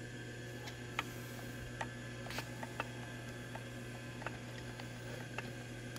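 Scattered light clicks of keys being pressed on an Acu-Rite Millpwr CNC control keypad, irregularly spaced, over a steady low electrical hum.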